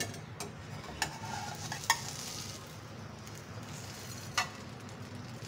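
Egg-coated bread toast sizzling in a non-stick frying pan, with a few sharp clicks of metal spatula tongs against the pan as the toast is gripped and flipped. The loudest click comes a little under two seconds in.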